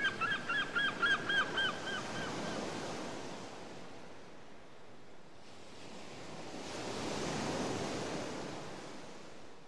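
Ocean waves washing gently, a swell rising and fading about seven to eight seconds in. During the first two seconds a quick run of short, high, chirping calls comes about six a second.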